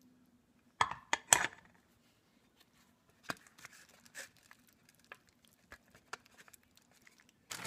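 A few sharp knocks about a second in as ground chicken is scraped off a spatula into a corn tortilla, then soft crackles and crinkles as the filled tortillas are rolled and pressed into a disposable aluminium foil pan.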